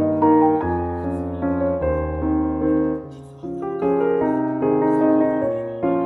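Background music: a gentle piano piece with soft chords over steady bass notes, briefly thinning out about three seconds in before carrying on.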